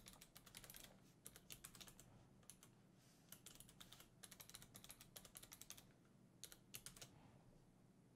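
Faint computer keyboard typing in short bursts of keystrokes, stopping about seven seconds in.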